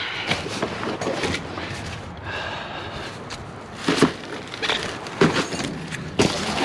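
Scrap metal and wire being picked through by hand, rattling and clattering, with three sharp knocks of pieces hitting each other in the second half.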